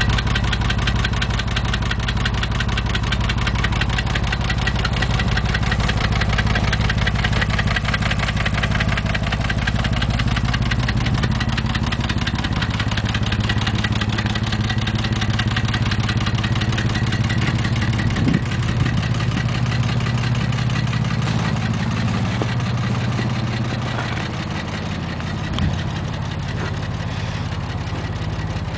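Porsche 911 (996) flat-six engine idling with a fast, even knocking running through it: the engine knock the owner is showing on this 110,000 km car.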